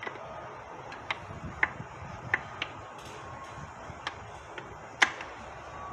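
Light metal clicks and clinks at irregular intervals, several in all with the sharpest about five seconds in, as the reverse idler gear and its shaft are handled and fitted into an Acura RSX six-speed transmission case.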